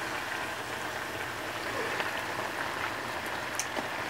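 Beer-and-water broth boiling in a wok around potatoes, corn and onions: a steady bubbling hiss with a few faint ticks.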